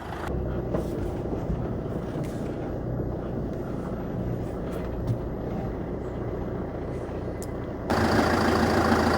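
A car engine running steadily at low speed, suddenly louder about eight seconds in.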